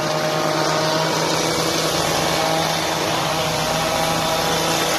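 A small engine running steadily at a constant speed, with a continuous hum and a hissing noise, as from olive-harvesting machinery working in the grove.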